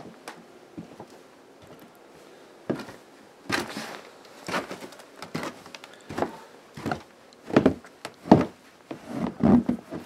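Footsteps crunching through deep, fresh snow at a steady walking pace, about one step a second, starting about three seconds in and growing louder.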